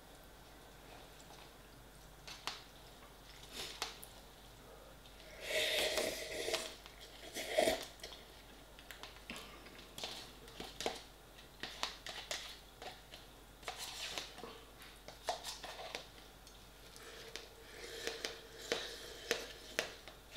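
Eating from a paper instant-noodle pot: a metal utensil clicks and scrapes against the cup, with slurping and chewing. Louder slurps come about six and eight seconds in, and a run of them near the end as the cup is tipped to the mouth.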